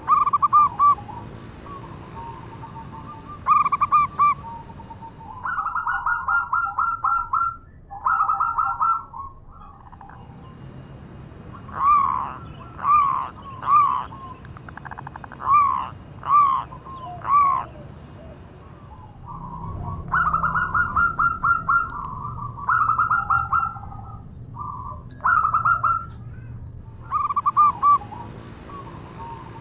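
Female zebra dove (perkutut) calling to a male. It gives runs of fast, stuttering notes, then from about twelve seconds in a string of separate rising-and-falling coos, then more fast runs near the end.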